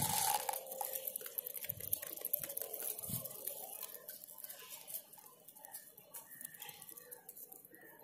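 Rock pigeons pecking and stepping among feed pellets on bare concrete: faint, irregular light taps and clicks, with two soft low thumps about two and three seconds in.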